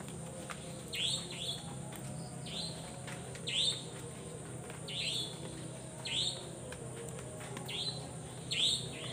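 Short chirps falling in pitch, repeated singly and in quick pairs about every second, over a steady high-pitched insect drone: a night chorus of calling animals and insects after rain.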